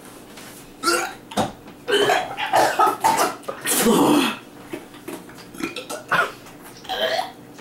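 A person gagging and retching in several harsh, irregular heaves, the strongest about four seconds in, unable to swallow a burning-hot ghost pepper (Bhut Jolokia).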